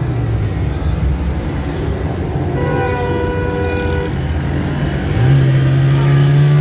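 Road and engine noise heard from inside a moving car in slow city traffic. A horn-like toot holds one pitch for about a second and a half midway. About five seconds in, a louder, low steady drone begins.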